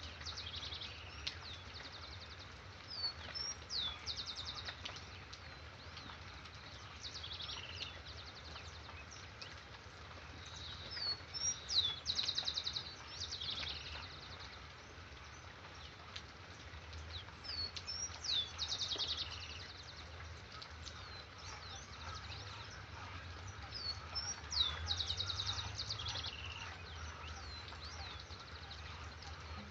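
A songbird singing the same phrase over and over, roughly every five or six seconds: a few quick rising chirps, then a fast high trill. Under it is a faint, steady hiss.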